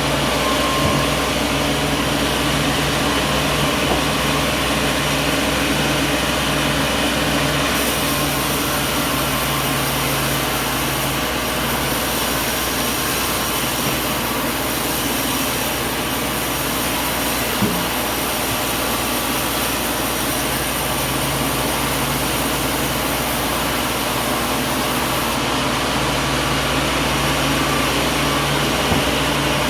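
Sawmill machinery running steadily: a constant mechanical drone with a low hum, and a faint high whine that comes in about a quarter of the way through and drops away near the end.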